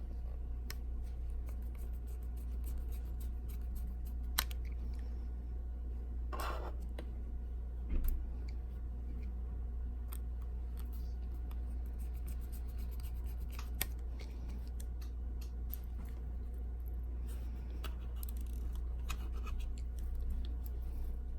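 Scattered small clicks and scrapes of tools and small metal parts being handled while fitting the shield plate onto an iPhone 6 Plus display assembly, with a knock about eight seconds in, over a steady low hum.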